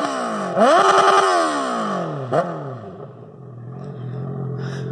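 Honda CB650's inline-four engine revved through an open exhaust with the catalytic converter removed. One rev is falling away, another rises and holds for a moment before sinking slowly, and a quick short blip comes about halfway through before it settles back to idle.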